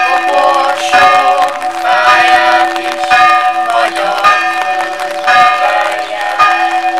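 Church bells pealing loudly, several bells struck in turn about once a second, each note ringing on and overlapping the next over a steady low hum.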